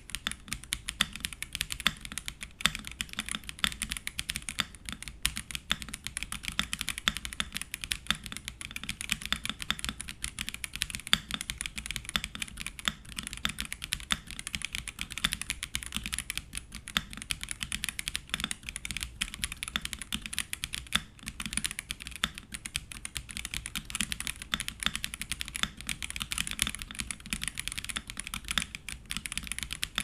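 Steady fast typing on a Royal Kludge M75 gasket-mounted mechanical keyboard with RK's own linear switches: a dense, unbroken run of keystroke clicks.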